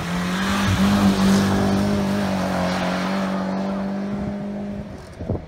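Classic Lada rally car's engine held at high revs as it slides past close by on a snowy loose-surface stage, with a hiss of tyres and thrown snow; loudest about a second in, then easing off and stopping shortly before the end.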